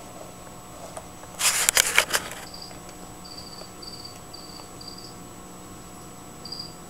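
A brief crackly rustle of things being handled about a second and a half in, then a cricket chirping in short, high, evenly spaced chirps over a faint steady hum.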